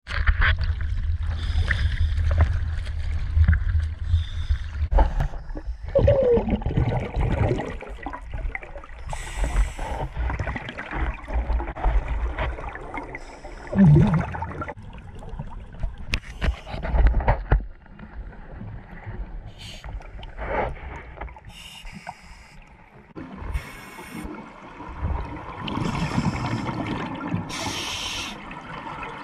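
Water heard through a GoPro's waterproof housing: sloshing and rumbling at the surface for the first few seconds, then muffled underwater noise with repeated bursts of scuba regulator exhaust bubbles every few seconds.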